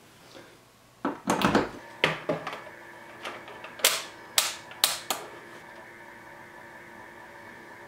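A run of sharp plastic clicks from a digital multimeter's rotary selector dial being turned through its detents, and the metal probe tips tapping against a switching power supply's screw terminals. About halfway through, a faint steady hum with a high whine comes in and holds.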